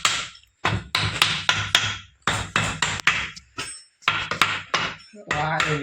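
Rapid hammer blows on metal, about four to five strikes a second, in bursts with short pauses between them and a light ring after the strikes.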